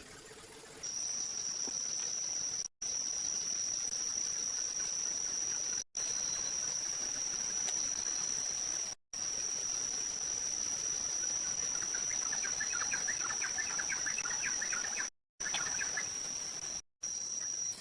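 Insects trilling steadily at one high pitch, broken several times by brief gaps of silence. A run of faint rapid ticking comes in for a few seconds past the middle.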